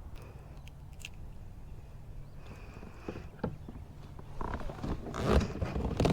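A few faint knocks and clicks of gear on a kayak, then, from about four and a half seconds in, a growing burst of louder scraping and rustling as an angler handles his fly line.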